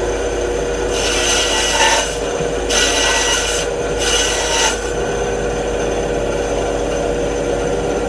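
Benchtop band saw running steadily, its blade cutting into a small piece of wood in three short passes between about one and five seconds in, then running on without cutting.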